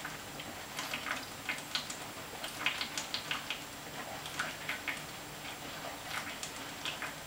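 A man chugging malt liquor from an upturned 40-ounce glass bottle: irregular quick gulps and the liquid glugging in the bottle, several small clicks a second.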